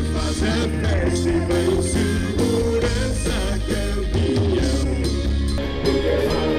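Rock band playing, with electric guitar, drums and a man singing.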